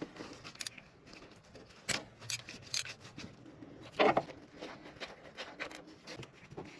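An 8 mm socket undoing the bolts of a timing chain tensioner: irregular metal clicks and short scrapes, with one louder clack about four seconds in.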